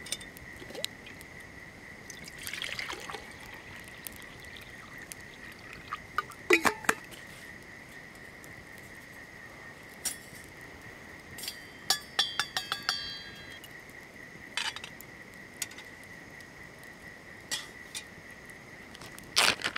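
Water poured into a stainless steel camp mug, then metal cookware clinking with several sharp knocks and a quick run of ringing clinks as a small lidded pot is set in the campfire to boil water. A steady high-pitched whine runs underneath throughout.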